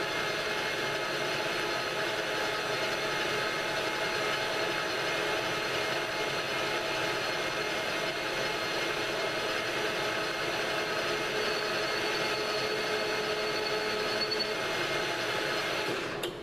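Metal lathe running while a radius form tool cuts the rounded end of a metal clamp screw: steady machine noise with several constant tones, and a thin high whine added partway through. It stops abruptly near the end.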